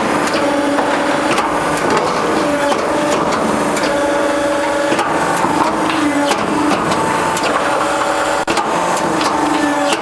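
Metal-roofing crimping machine running: a steady mechanical clatter with many short clicks and knocks, and a pitched motor whine that comes and goes.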